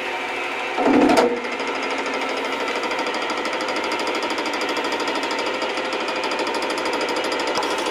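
Metal lathe running with a fast, rhythmic clatter as it spins a bench vise screw that has severe wobble, with a brief louder burst about a second in.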